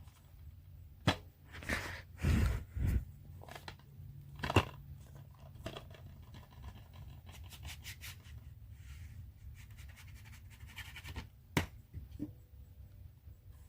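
A few sharp clicks and short scraping and rustling sounds over a low steady hum, with a quick run of small ticks partway through.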